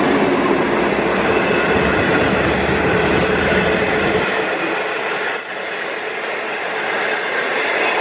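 A train passing close by on the rails, a loud, steady running rumble whose deepest part drops away about four seconds in.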